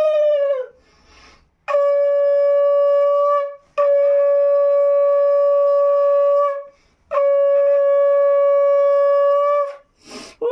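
Conch shell (shankha) blown in long, steady blasts on one pitch: a blast ends just after the start, then three full blasts of two to three seconds each follow with short breaths between, and another begins at the very end.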